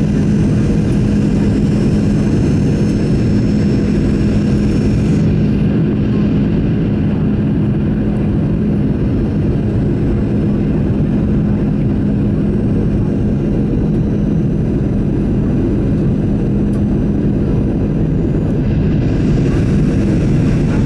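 Steady in-cabin noise of a Boeing 737-900ER on its approach: engine and airflow noise with a low steady hum that fades out near the end.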